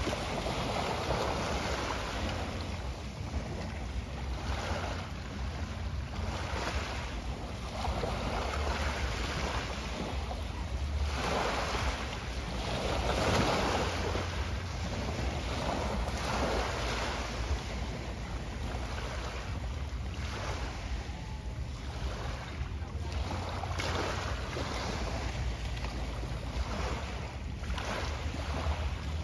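Sea waves washing in, the hiss swelling and fading every second or two, over a low rumble of wind on the microphone.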